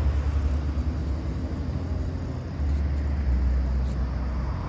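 Road traffic noise: a steady, low rumble without distinct events.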